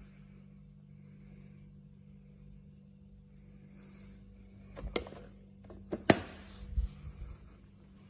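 Steady low hum under a few sharp clicks and knocks about five and six seconds in, the one near six seconds the loudest, followed by a dull thump.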